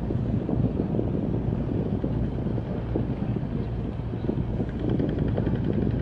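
Boat engine running steadily as a boat passes, a constant low rumble with wind buffeting the microphone; a faint higher whine joins in over the last second or two.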